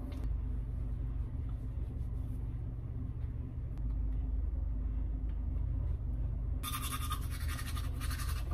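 Teeth being brushed with a toothbrush: fast, scratchy scrubbing that starts about two-thirds of the way in, over a steady low hum.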